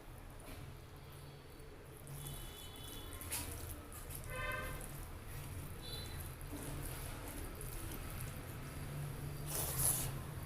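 Wet chewing and mouth sounds of a person eating a rice-and-curry meal, with a louder crunch or smack near the end.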